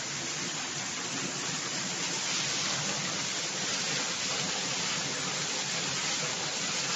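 Rainwater from a violent downpour gushing through a breached ceiling and splashing onto the floor below: a steady rushing of water.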